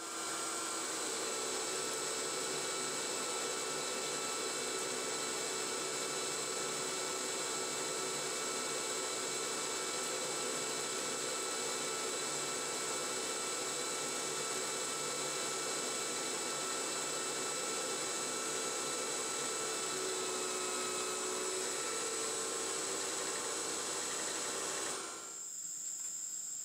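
CNC-converted 9x20 benchtop metal lathe taking a heavy roughing cut with a carbide insert at 700 rpm: steady cutting noise over the spindle drive's whine. About 25 seconds in the cut ends and the noise drops away, leaving a fainter high whine.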